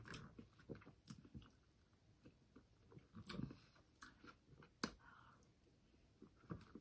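Faint chewing of vanilla bean cheesecake, with soft mouth noises and scattered small clicks. The sharpest click comes about five seconds in.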